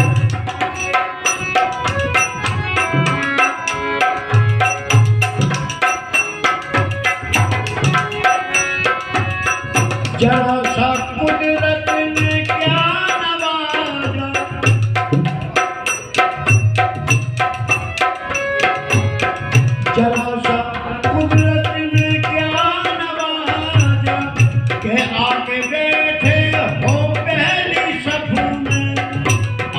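Harmonium playing the melody of a Hindi song in an instrumental passage, its sustained reedy chords over a steady beat of low hand-drum strokes.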